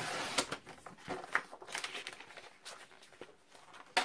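Sliding paper trimmer's blade drawn through a sheet of card, a brief scraping hiss, followed by soft paper handling and light clicks as the trimmer is moved; a sharp click near the end.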